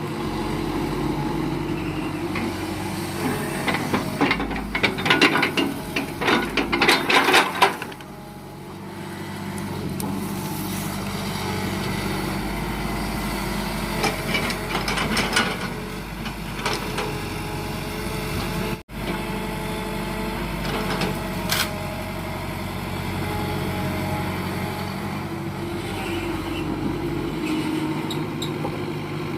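Diesel engine of heavy log-handling machinery running steadily, with two stretches of rapid knocking and clattering, one from about three to eight seconds in and a shorter one around fifteen seconds.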